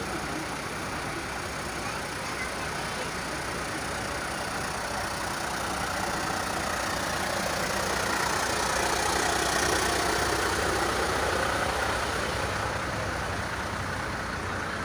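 Bus engine idling amid traffic noise, growing somewhat louder in the middle before easing back.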